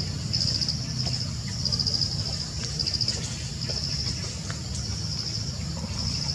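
Insects trilling in short, high, pulsed bursts that repeat every second or so, over a steady low rumble.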